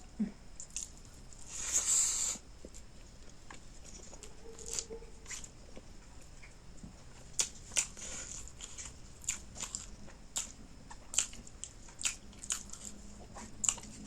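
Close-miked eating sounds of fish curry with eromba: chewing with frequent short wet clicks and lip smacks, and a longer noisy crunch about two seconds in.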